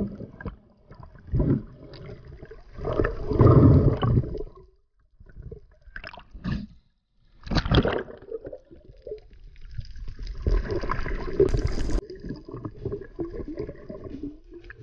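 Underwater water noise heard through a camera's waterproof housing: muffled gurgling and rushing of water and bubbles around a swimming diver, coming in uneven surges.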